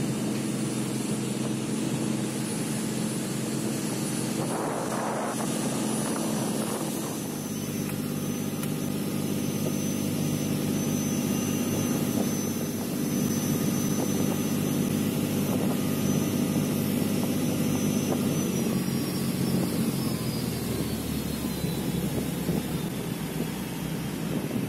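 Rigid inflatable speedboat's engine running steadily under way, a constant drone with wind and water rushing past.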